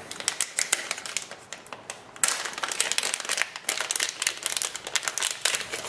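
Plastic packaging and a metallized anti-static bag crinkling as they are handled and pulled open by hand: a dense run of sharp crackles that grows thicker and louder about two seconds in.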